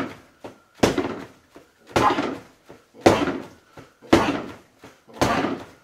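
Fists striking a full-length punching bag on a DIY stand with a rigid dual platform, five hard hits about a second apart, each thud trailing off briefly as the bag and stand settle.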